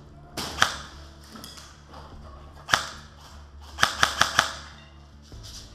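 Airsoft guns firing: a single sharp shot, another about two seconds later, then a quick string of four shots.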